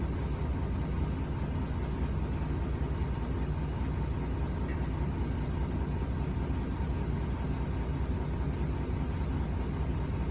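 Dump truck's diesel engine running steadily, a low even hum with no changes in pitch.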